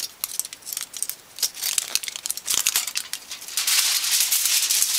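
Thin aluminium foil and paper strips from an electrolytic capacitor crinkling and rustling as they are unrolled and handled. At first a run of small crackles, it becomes a dense, continuous rustle for about the last second and a half.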